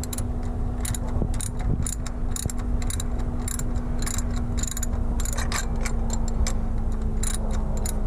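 Socket ratchet clicking in short, uneven runs as it is worked back and forth on a bolt, over a steady low hum.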